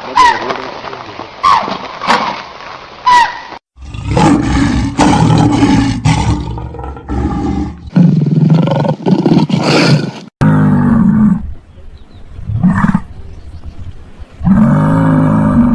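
A large animal roaring deeply in several long bouts, after a few short, high, falling calls in the first few seconds.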